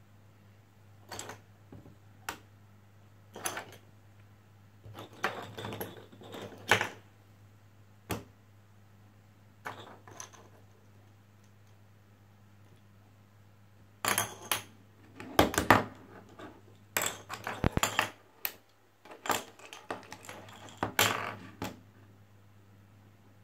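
Plastic magnetic building sticks and balls clicking and clacking as they snap together and are handled, in irregular clusters of clicks that are busiest in the second half, with a short lull before it. A faint steady low hum runs underneath.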